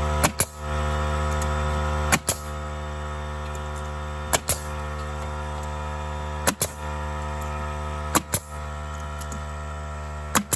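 A steady, unchanging hum with many overtones, broken about every two seconds by a pair of sharp clicks.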